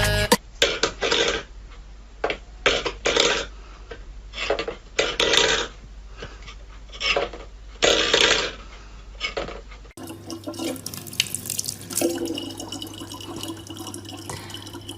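Water splashing in irregular bursts, then steadier running water with a low hum.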